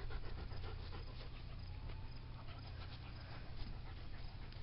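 A collie panting, faint.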